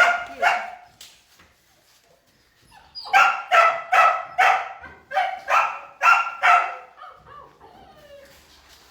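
Dog barking: two barks at the start, then after a pause a run of about eight barks, roughly two a second.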